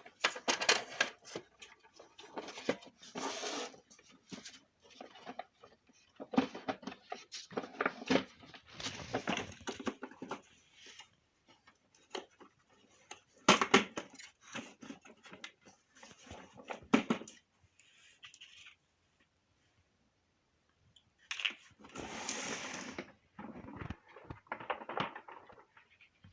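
Plastic vacuum cleaner housing parts being handled and fitted together as the case is closed: irregular clicks, knocks and scraping, with a brief pause of a couple of seconds about three quarters of the way through.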